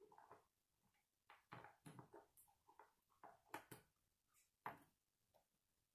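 Faint, irregular clicks and rattles of plastic K'nex rods and connectors being handled and snapped together, with a few sharper clicks in the second half.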